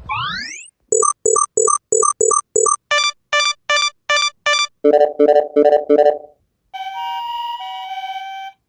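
Electronic synthesizer jingle: a quick rising sweep, then rows of short evenly spaced beeps (six, six, then four), ending in a held two-note synth chord that steps down and cuts off cleanly.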